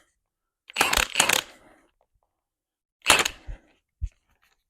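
Metal tools and parts clinking and clattering in two short flurries, then a single knock near the end.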